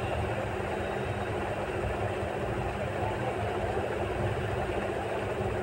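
A vehicle's engine running steadily: a constant low hum over an even noise, with no change in pace.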